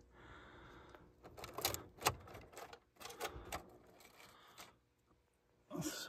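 A few faint, scattered clicks and rustles of handling at an open heat pump control panel, with no blower or compressor running.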